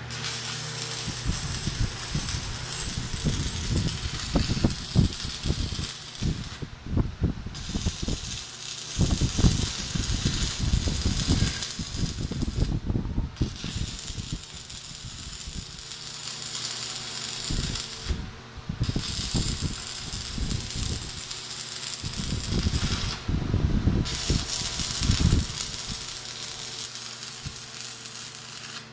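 Stick welding with a 1/8-inch 6013 rod at 140 amps: the arc crackles and hisses steadily in five runs, with a brief pause between each as the next bar is welded.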